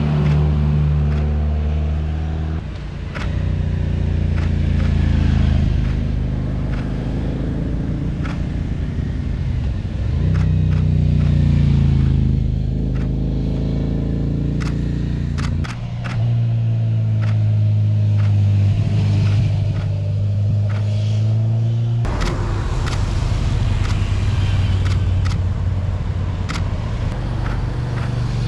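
Motor vehicle engines passing through a road bend one after another, their engine notes rising and falling in pitch. The sound changes abruptly a few times.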